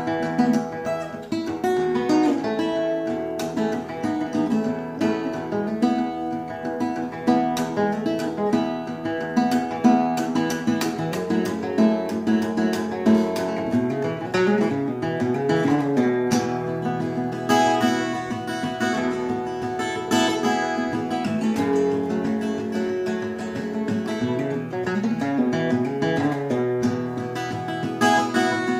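Solo 1967 Martin 0-18 steel-string acoustic guitar fingerpicked in drop D tuning with a capo at the second fret, an instrumental passage of picked bass notes and melody with a stretch of sliding notes about halfway through.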